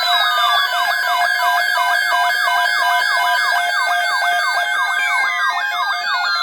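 Layered electronic alert sounds: a fast siren-like sweep of about four a second over steady and pulsed tones, with slower falling glides near the start and again about five seconds in.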